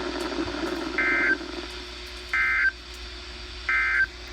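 SAME end-of-message data from a NOAA Weather Radio broadcast: three identical short bursts of two-tone digital warble, each about a third of a second long and a little over a second apart, marking the end of a flash flood warning. Faint radio hiss lies underneath.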